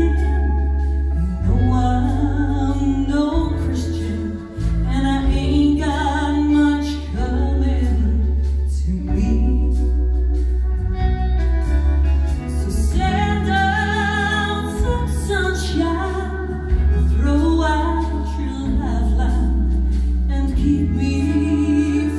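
A woman singing live with a band of pedal steel guitar, electric bass guitar and drums, over a strong, steady bass line.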